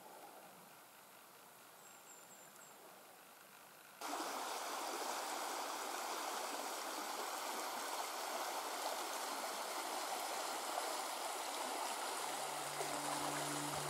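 Near quiet for about four seconds, then stream water rushing steadily, starting abruptly. Background music with low held tones fades in near the end.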